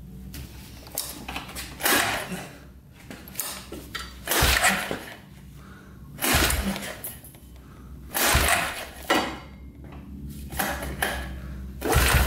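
Recoil pull-starter of a 1998 Arctic Cat 300 ATV pulled several times, cranking the single-cylinder engine hard against compression with a compression gauge fitted. Each pull is a rasping rush with a low thump, about every two seconds. The engine is stiff to pull, a sign of good compression, which reads about 130 PSI.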